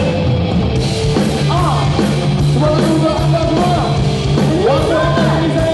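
Live rock band playing loud: electric guitars with gliding, bending lines over bass and drums.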